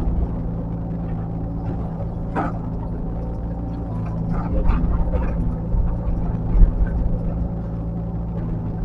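Heavy earthmoving machine's diesel engine running steadily, with a few short sharp sounds about two and a half, four and a half and six and a half seconds in, the last with a low thud.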